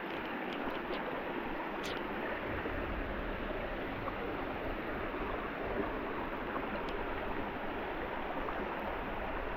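Steady rushing of stream water, with a few faint clicks.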